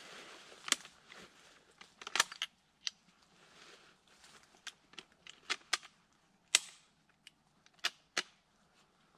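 Scoped hunting rifle being handled, its action clicking: a dozen or so sharp clicks at irregular intervals, the loudest about six and a half seconds in.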